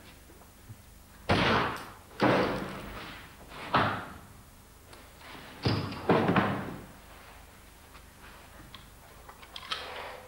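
A series of five loud, sudden bangs, slams or thuds, each with a short echoing tail, in a bare hard-walled room.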